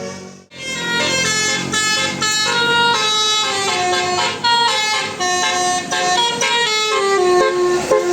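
Bus 'telolet' horn, a set of multi-tone air horns playing a quick tune of short notes that step up and down in pitch. It breaks off briefly about half a second in, and near the end one note slides down in pitch like a siren.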